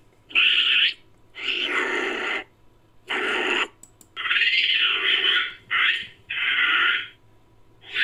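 Homemade sound effect of a Nicobar long-tailed macaque: a series of about six short, hoarse, noisy calls, each half a second to a second long, with brief pauses between them.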